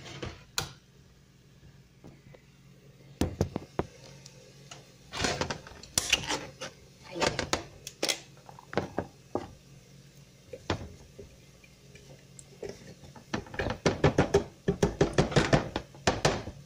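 Scattered knocks and clinks of a tin can and kitchen utensils against a blender jar. Near the end comes a quick run of taps, about four a second, as the open can is knocked against the jar to empty the tomato into it.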